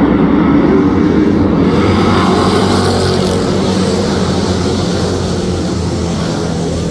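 A pack of dirt-track race cars running hard as the field takes the restart, their engines blending into one loud, continuous noise that swells as the cars pass about two to three seconds in.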